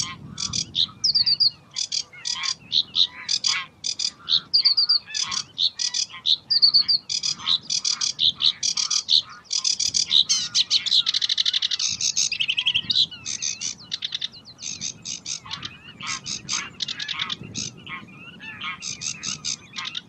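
Sedge warbler singing: a long, fast run of varied chattering notes with short phrases repeated, turning into a dense unbroken trill about ten seconds in before breaking back into separate notes.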